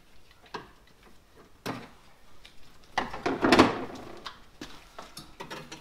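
Metal knocks, clanks and a rattling scrape as a car radiator is worked loose and lifted out of the engine bay, loudest a little past halfway.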